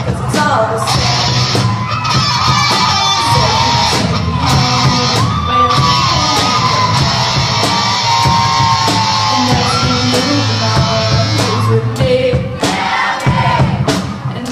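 Live amplified rock band performing: a singer's melody over drums, cymbals and bass.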